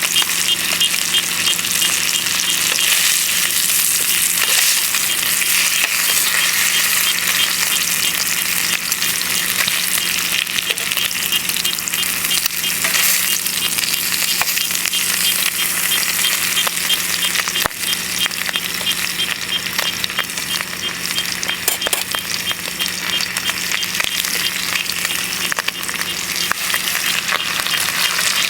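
Bacon and eggs sizzling steadily in a frying pan, with scattered small pops and spits of fat.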